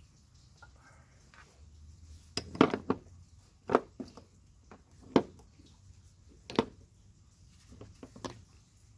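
Metal tools and engine parts clanking and knocking, about five sharp knocks a second or so apart, while an old water pump is worked off an engine.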